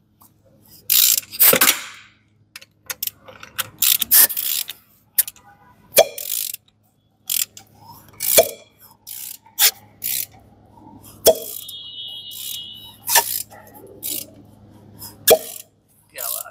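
Freshly rebuilt Maruti Ciaz diesel engine being turned over by hand for a rough compression check: irregular mechanical clicks and short hissing bursts.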